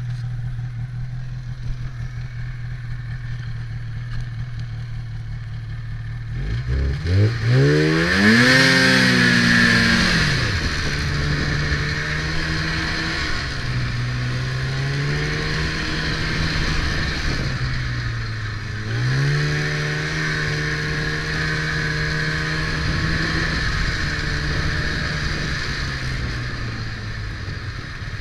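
Polaris Indy 500 snowmobile's two-stroke twin engine idling steadily, then revving up sharply about six or seven seconds in as the sled pulls away. It then runs on at varying speed, easing off twice and picking up again as the throttle is opened.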